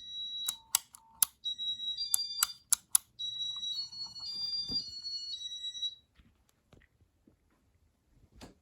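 Button clicks and electronic beeps from a Casablanca Intellitouch ceiling fan control as demo mode is started, ending in a short stepped run of high beeps.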